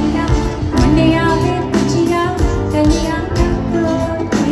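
Live amplified pop music: a Hindi-language song with singing over a steady drum beat.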